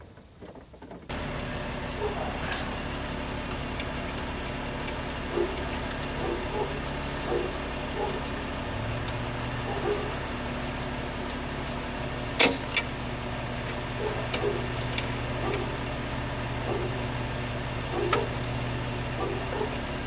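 A steady engine-like hum that starts abruptly about a second in and runs on evenly, with scattered light metallic clicks and clinks, one sharper click near the middle.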